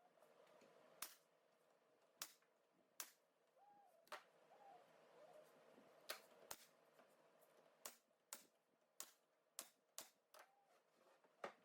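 Faint sharp clicks or taps at uneven intervals, about a dozen, roughly one a second, over a low steady hum.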